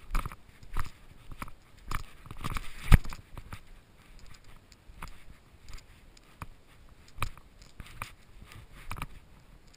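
Shoes scraping and crunching on gritty rock while climbing, in an uneven series of scuffs and knocks, with the loudest knock about three seconds in.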